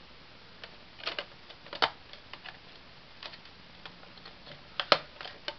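Blu-ray discs being handled in a clear plastic multi-disc case: a scattering of sharp plastic clicks and taps as a disc is worked off its centre hub, the loudest click about five seconds in.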